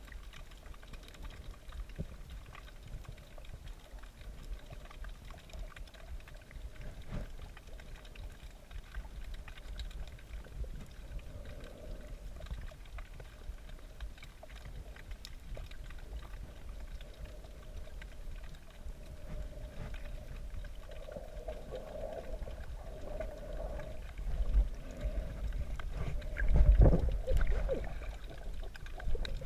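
Muffled, low water rumble and sloshing picked up through a GoPro's waterproof housing while snorkelling, with a few louder bumps and swishes near the end.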